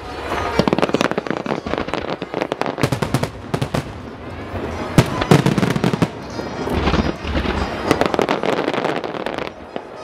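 Starmine fireworks: a rapid-fire barrage of shells launching and bursting in quick succession, a dense run of bangs and crackling. The sharpest bangs come about halfway through.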